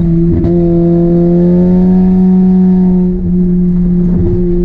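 Honda Civic four-cylinder engine with a rod knock, held at high revs under full throttle in a loud steady drone. The pitch climbs a little in the middle and dips briefly twice near the end.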